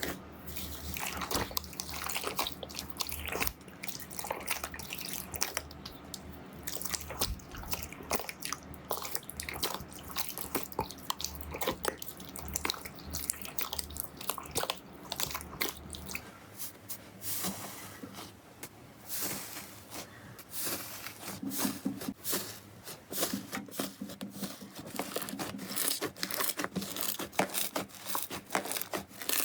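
Slime being squeezed and poked: dense, irregular crackling and popping clicks, like crunchy slime, with a few wetter squishes.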